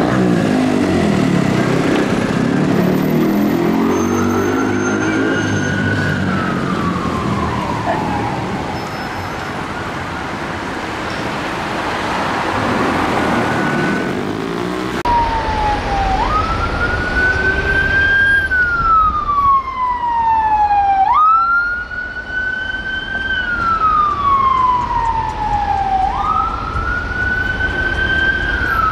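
Metropolitan Police BMW X5 sirens wailing over city traffic. After a cut about halfway through, the wail rises quickly and falls slowly in a steady cycle about every five seconds. Before the cut there is a single rise and fall over heavy engine and traffic noise.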